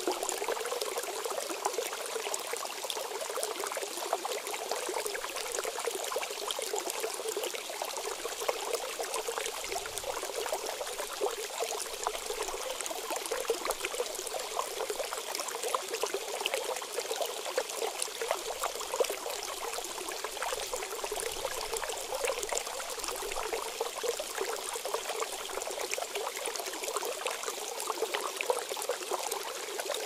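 Shallow stream running over rocks: a steady, even rush of water with little deep rumble.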